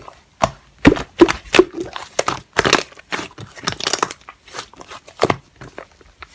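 Hands squishing and poking slime, giving irregular sticky pops, clicks and crackles.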